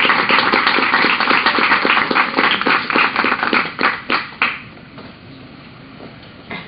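Audience applauding, thinning to a few separate claps and stopping about four and a half seconds in.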